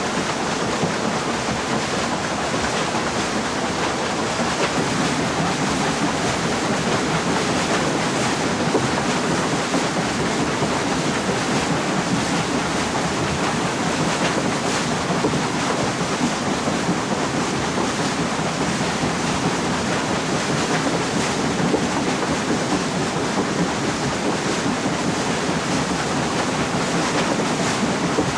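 Steady rush of water driving a turning wooden waterwheel.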